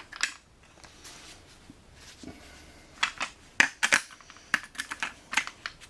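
A few seconds of quiet, then a run of sharp clicks and light metallic clatter from small hard objects being handled and set down, beginning about halfway through.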